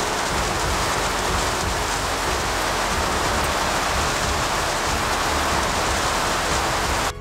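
Milling machine running, a loud steady hiss-like noise with no change in pitch, while the counterbore cutter is lowered toward the work.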